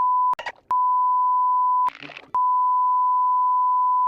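Censor bleep: a loud, steady single-pitched beep tone, broken twice by short snippets of cartoon voice, about a third of a second in and about two seconds in, and then running on.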